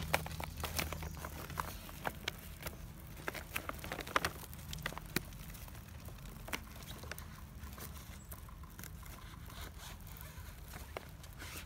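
Irregular crinkling and crackling of a woven plastic tarp and camouflage duct tape as hands fold the tape over the tarp's edge and press it down, busiest in the first half, over a low steady hum.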